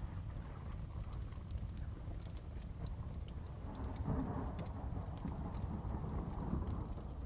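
Crackling fireplace, with scattered sharp pops and snaps, over steady heavy rain and a low thunder rumble. The rain and rumble swell about four seconds in.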